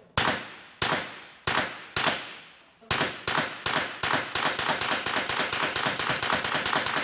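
9mm CZ Scorpion carbine firing: four single shots about half a second apart, then a fast string of about twenty rounds speeding up to roughly six or seven shots a second. Each shot is loud and sharp, with a short ringing tail.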